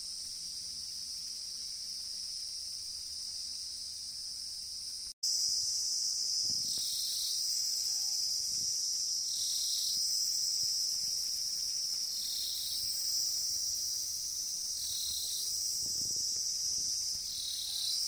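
A steady high-pitched chorus of crickets, rising and falling slightly every two to three seconds. It becomes louder after a cut about five seconds in.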